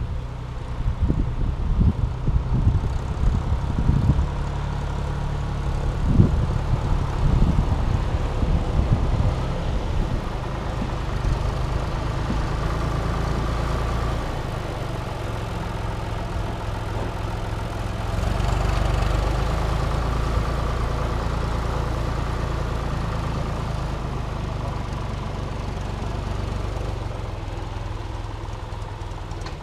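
John Deere tractor's diesel engine running steadily as the tractor pulls a forage loading wagon past, with wind buffeting the microphone in the first several seconds.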